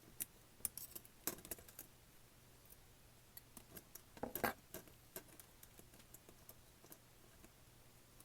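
Small scattered clicks and taps of plastic and metal tablet parts being handled and fitted, with a slightly louder knock and rustle about four and a half seconds in.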